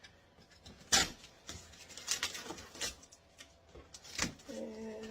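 Packing tape being peeled and ripped off a cardboard shipping box: several sharp rips and crackles, the loudest about a second in.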